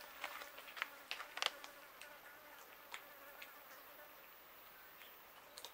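Cats eating from a shared plate: scattered faint wet clicks and smacks of chewing, with a thin wavering buzz of a fly under them.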